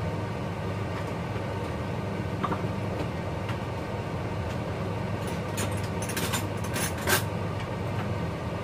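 A steady low hum throughout, with a cluster of light clicks and scrapes about five to seven seconds in as cooked rice is scooped out of a rice-cooker pot.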